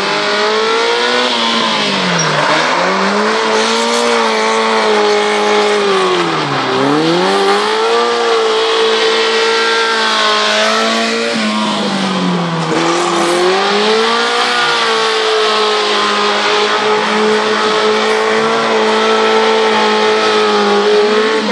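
Autobianchi A112's four-cylinder engine revving hard through a gymkhana run, the revs dropping sharply and climbing back about three times, then held high and steady for the last few seconds. Tyres squeal as the car slides and spins.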